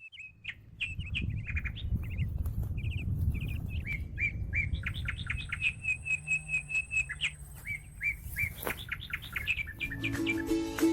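Small birds chirping repeatedly, with a quick, even run of notes near the middle.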